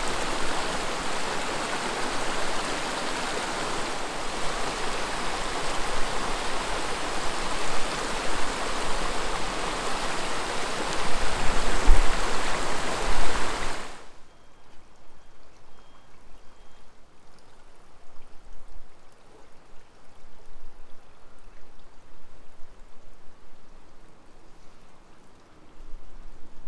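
Steady rushing of running water, cutting off abruptly about fourteen seconds in and leaving a much fainter watery hiss.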